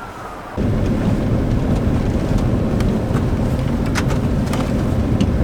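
A distant siren wails faintly, falling in pitch, and cuts off about half a second in. A loud, steady low rumble of a vehicle on the move takes over, with a few sharp clicks.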